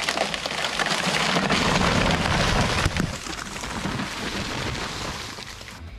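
A felled tree coming down: branches and leaves crackling and crashing, loudest over the first three seconds and then dying away.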